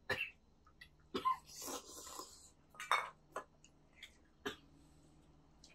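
Scattered clinks and taps of chopsticks against metal bowls and the cooking pan as several people eat, five or six separate short knocks spread over the few seconds.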